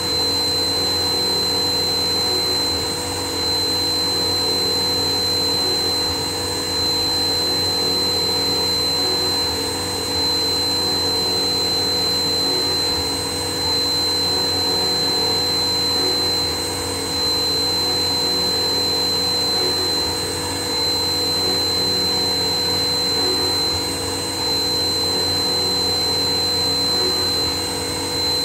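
CNC machine running steadily with a high, constant whine and several lower steady tones. Its level dips slightly about every three and a half seconds, as the machine repeats its motion.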